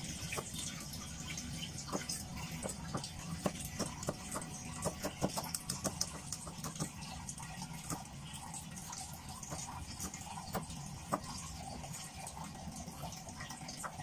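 Cleaver slicing red and green chillies on a wooden chopping board: a run of quick, sharp knife taps, densest in the middle and stopping shortly before the end, over a steady background hiss.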